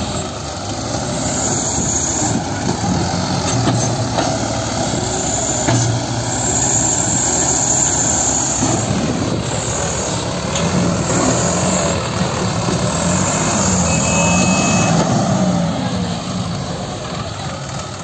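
Diesel engines of a Sonalika DI 745 tractor and a backhoe loader running hard under heavy load together, their pitch rising and falling as the tractor strains to pull a loaded trailer out of soft earth with the backhoe pushing from behind.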